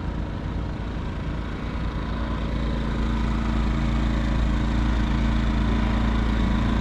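Small portable generator running steadily at a constant idle, a low even hum that grows a little louder about two and a half seconds in.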